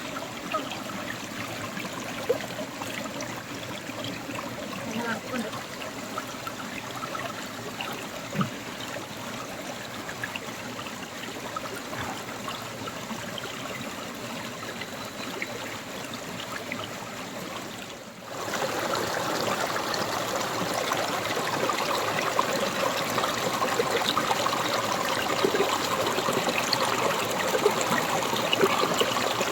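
Small rocky forest stream flowing and trickling over stones in a steady wash. After a brief drop about two-thirds of the way through, it is louder and fuller.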